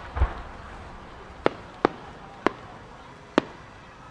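Fireworks: a deep thump from a size 10 (12-inch) shell going up at the start, then four sharp, separate cracks of small firework reports spread over the next few seconds.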